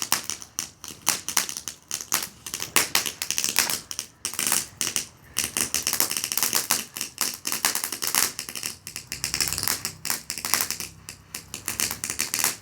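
A firework crackling: a dense run of rapid, irregular sharp pops and snaps that keeps going without a break.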